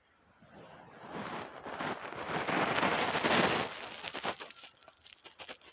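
Close rustling and crackling, like something being handled or shifted against the microphone, building up over about three seconds and then thinning out into a few scattered clicks.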